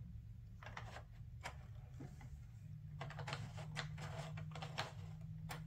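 Plastic gear wheels on a children's sound book panel being turned by hand, giving faint, irregular clusters of small clicks.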